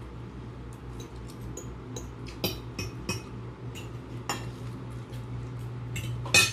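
Eating utensils clicking and clinking against bowls as people start eating spicy instant noodles, a scattering of separate clicks over a steady low hum.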